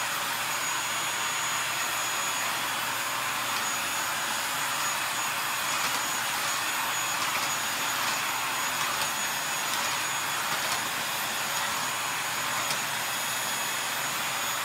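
Corded stick vacuum cleaner running steadily: an even rushing hiss with a thin, steady high-pitched whine over it, and a few faint clicks as the head moves over the hard floor.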